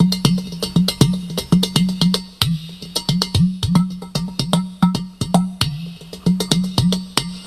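Udu, a clay pot drum, played in a rapid improvised run: sharp finger taps on the clay body over deep hollow tones, several of which swoop in pitch.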